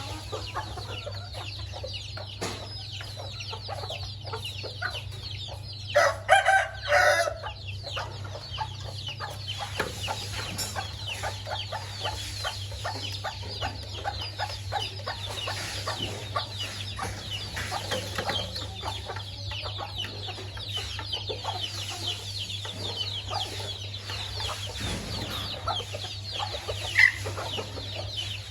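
A flock of chickens clucking and calling while they feed, with a rooster crowing loudly about six seconds in.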